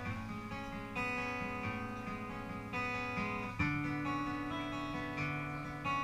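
Small live band playing an instrumental passage: strummed acoustic guitar over electric bass, with a chord change and accent about halfway through.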